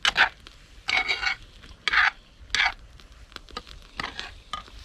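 Cutlery scraping on a dish in short, irregular strokes, about five in all, as fried potatoes are scooped up and eaten.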